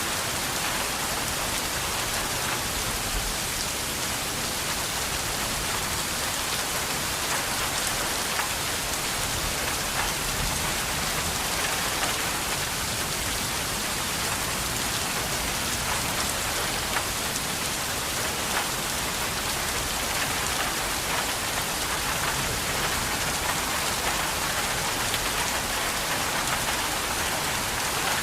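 Steady rain falling and pattering on surfaces, an even hiss of countless drops with no let-up.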